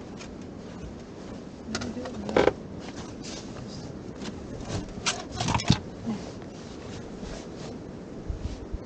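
Scattered crackles and sharp clicks of glacier ice, with a single loud pop about two and a half seconds in and a quick cluster of them around five seconds in.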